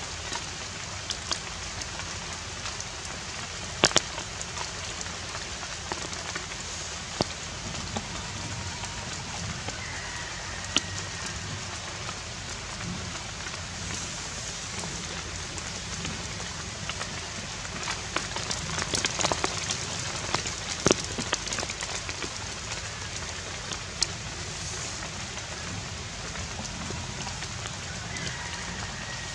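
Steady outdoor hiss with scattered sharp clicks and ticks, a few louder ones about four seconds in and again around twenty-one seconds.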